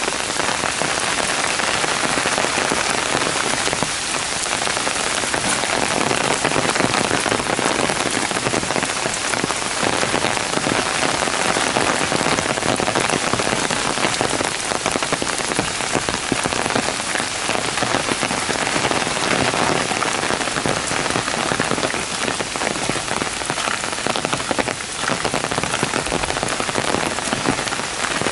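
Heavy downpour: rain falling steadily and hard on a gravel path and on the leaves of dense shrubs and trees.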